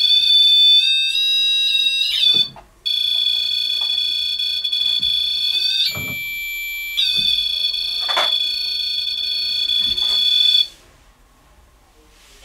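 REM-Pod paranormal detector's electronic alarm sounding a loud, steady high-pitched tone. It shifts in pitch a few times, breaks off for a moment about two and a half seconds in, switches to a different tone for about a second midway, and stops near the end. The investigators take the alarm for a spirit standing close to it.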